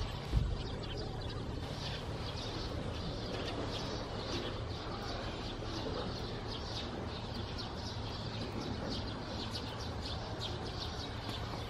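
Small birds chirping repeatedly in quick short notes over a steady low background hum, with a brief low thump just after the start.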